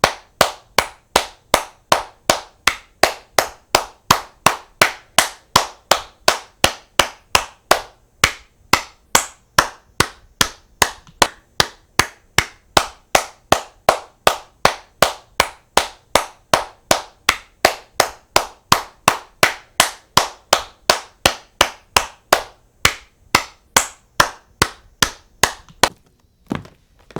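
A long run of sharp, evenly spaced claps, nearly three a second, with a brief break about eight seconds in and again later on, and less regular strikes near the end.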